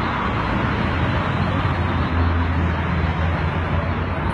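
Steady road-traffic noise: a constant rumble and hiss, with a low hum that grows stronger about halfway through.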